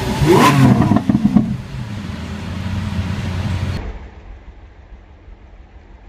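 Lamborghini Aventador LP700-4's V12 revving loudly, rising in pitch, in the first second and a half, then running at a lower level. About two-thirds of the way in the sound drops suddenly to a quieter, duller engine rumble.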